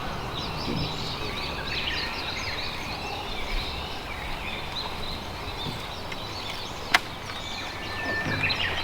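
Several birds chirping and singing in many short calls over a steady low background rumble, with one sharp click about seven seconds in.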